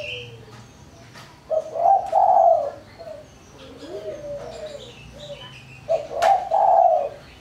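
A caged spotted dove (tekukur) cooing: two song phrases, one about one and a half seconds in and another near the end, each a short note followed by a longer, falling one. Between the phrases there are softer low calls. It is the small, thin voice that Indonesian dove keepers call 'mersik'.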